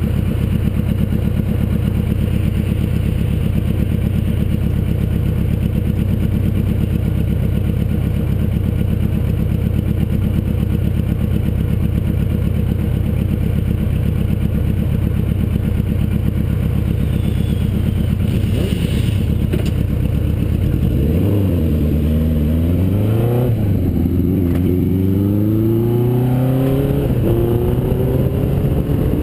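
Suzuki GS850's air-cooled inline-four engine idling steadily at a stop. About two-thirds of the way through it revs up as the bike pulls away, its pitch rising, dipping once at an upshift, then climbing again.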